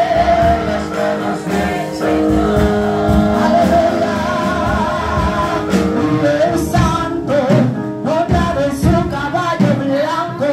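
A woman singing a gospel worship song into a microphone with a wavering vibrato, over a musical accompaniment.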